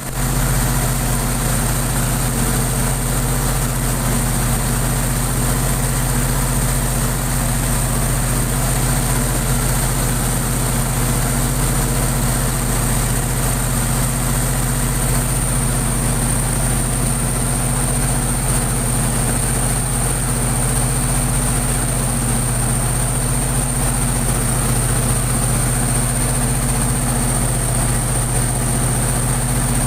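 Diesel generator set running steadily at constant speed under test, a continuous even engine hum with a thin high whine over it.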